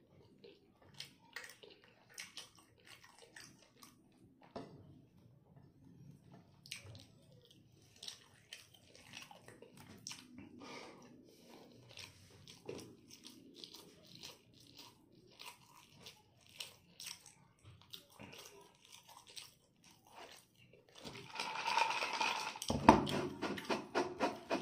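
A person chewing pork adobo and rice close to the microphone: small wet mouth clicks and smacks. The chewing grows louder and denser near the end, with one thump among it.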